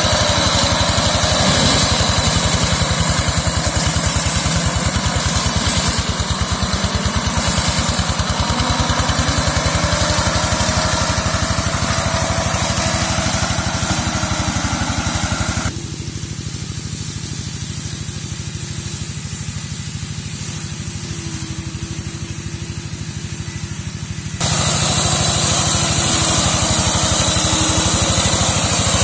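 Small engine of a walk-behind slasher mower running steadily at working speed as it clears undergrowth. About halfway through, the sound goes duller and quieter for around eight seconds, then comes back at full strength.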